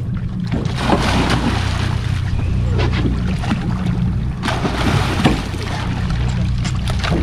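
Boat engine idling steadily under loud splashing and sloshing water as a gaffed yellowfin tuna thrashes against the hull, in two spells of splashing with a short lull between them.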